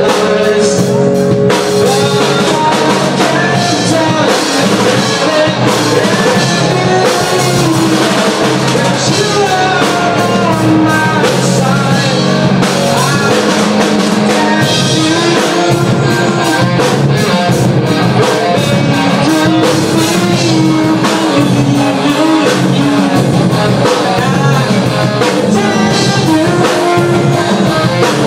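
Live rock band playing a song: electric guitars, bass and drums, with a singer's voice over them.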